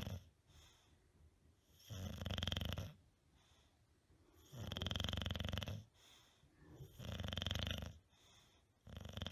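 English bulldog snoring in its sleep, one snore about every two and a half seconds, each lasting about a second.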